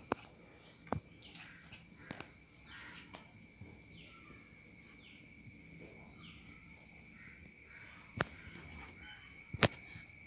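A few sharp clicks and taps as the glue bottle and paper cup are handled, the loudest two near the end. Behind them a bird calls again and again with short falling notes, stopping about two-thirds of the way through, over a faint steady high whine.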